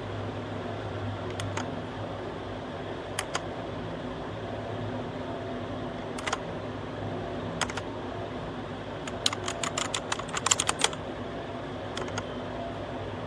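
Keys being pressed on a Redragon K617 60% mechanical keyboard: a few scattered keystrokes, then a quick burst of typing about two-thirds of the way through, over a steady low hum.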